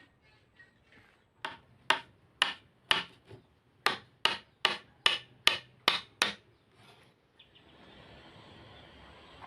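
Hammer or mallet striking repeatedly in woodworking, about a dozen sharp blows at two to three per second, followed by a faint steady hiss.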